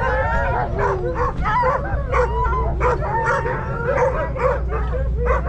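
A team of sled dogs yipping, whining and barking all at once, many short overlapping calls rising and falling, over a steady low rumble.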